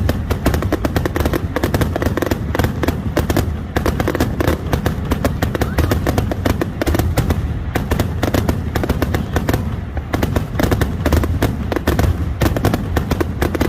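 Fireworks finale: a dense, unbroken barrage of shell bursts and crackling reports, many a second.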